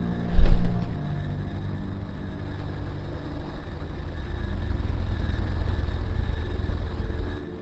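Aircraft engine droning steadily, with one heavy thump about half a second in.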